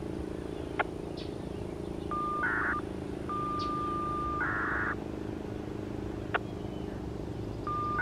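Federal Signal STL-10A electronic siren sounding a steady high alert tone that keeps cutting in and out. It swells louder and rougher for half a second or so at a time, with two sharp clicks along the way.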